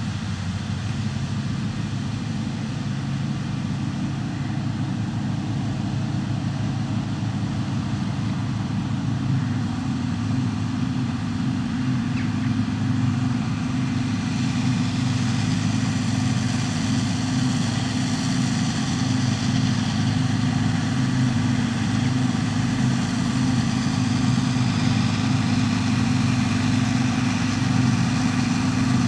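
New Holland TX68 combine harvester running steadily, its engine note and machinery noise slowly growing louder, with more high-pitched hiss from about halfway.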